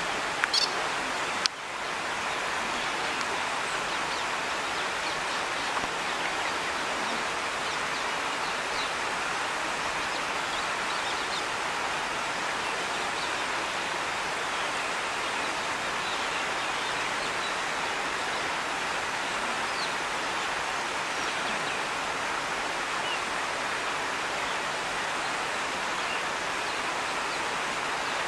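Steady rushing of flowing water, as from a stream or weir, with faint high chirps now and then and a couple of sharp knocks in the first two seconds.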